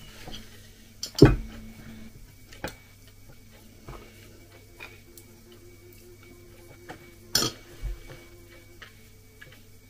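Tableware sounds at a meal: a ceramic cup knocked down on a table about a second in, then a spoon clinking and scraping in the cup, with another sharp knock later on.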